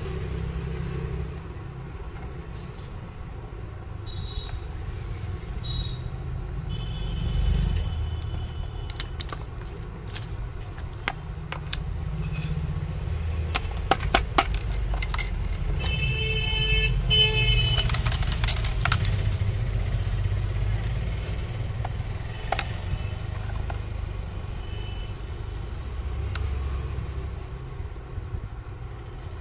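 Low rumble of road traffic, with a few light clicks of the iron's plastic cover and parts being handled, and a brief high-pitched tone a little over halfway through.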